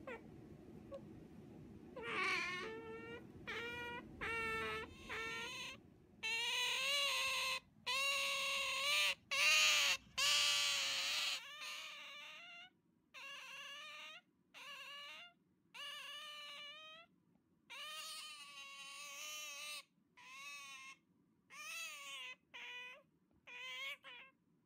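Otter giving a long series of high, whining squeaks, about twenty calls, some short and some drawn out for a second or more, each steady in pitch with a slight bend at the start.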